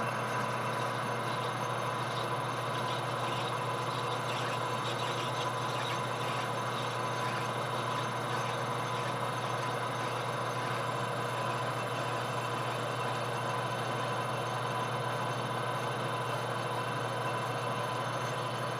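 Metal lathe running at a steady speed, an even machine hum with a thin high whine, while it turns a Delrin knob blank.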